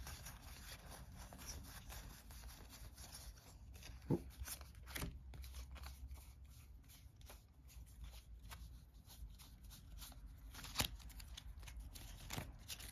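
Faint rustling and scattered soft clicks of oversized game cards being handled and shuffled in the hands and set down on a wooden table, with a few sharper taps.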